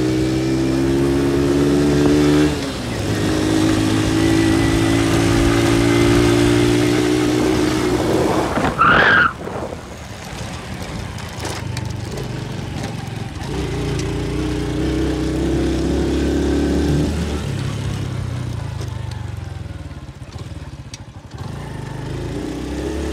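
Motorcycle engine running while riding along a dirt track, with a rushing wind noise on the microphone. The engine's pitch climbs and then drops about two and a half seconds in. A brief, loud, high-pitched sound comes about nine seconds in, after which the engine eases off for a few seconds before picking up again.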